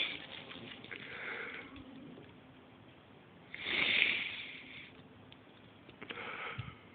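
A man sniffling while crying: three breathy sniffs, the loudest about four seconds in.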